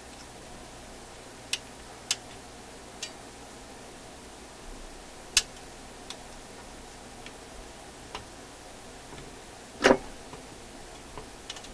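Scattered sharp metallic clicks as small steel hooking tools and a tension spring tap and slip against a record changer's metal linkage while the spring is being hooked into place. Half a dozen separate clicks, with one louder knock near the end.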